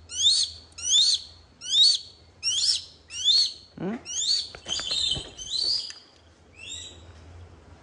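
Young hawk calling over and over, a sharp, high squeal that rises and falls, about once every three quarters of a second. After about four seconds the calls come quicker and run together, mixed with a few clicks. They fade out around six seconds.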